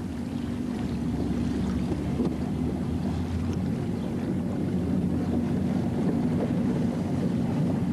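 Engine of a small motor boat running steadily under way, a continuous low drone.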